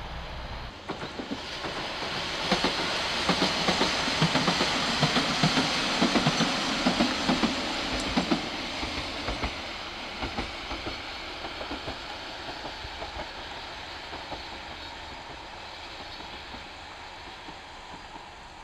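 Noto Railway diesel railcar passing by, its wheels clicking over the rail joints. The sound builds to its loudest a few seconds in, with a run of sharp clicks, then fades slowly as the railcar moves away.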